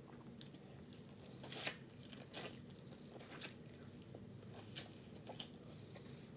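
Quiet eating sounds: a handful of soft, scattered clicks and crunches of chewing and biting, over a faint steady low hum.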